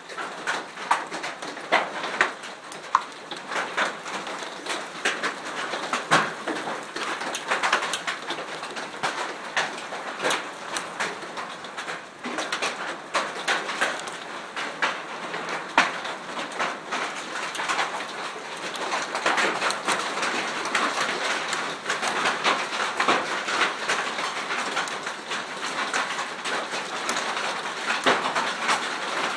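Hail and rain pelting down: a dense, irregular clatter of many small hailstone impacts over a steady hiss of rain.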